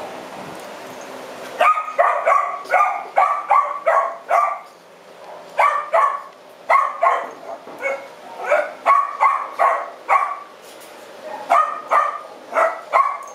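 A dog barking repeatedly in quick runs of short, high barks, about two or three a second, starting about two seconds in.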